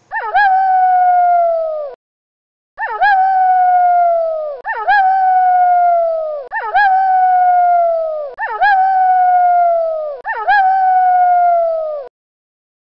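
Wolf howling, six loud howls in a row, each about two seconds long, jumping up in pitch and then sliding slowly down. The howls are so alike that they sound like one howl repeated.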